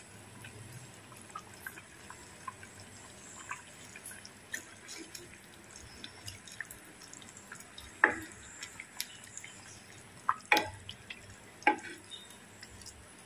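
A ladle stirring fish in thin curry in an earthenware clay pot: soft wet splashes and drips, with three sharper knocks of the ladle against the pot in the second half.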